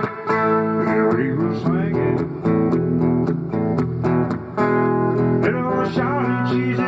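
A man singing a country song over his own strummed guitar chords, with the voice coming in and out between phrases.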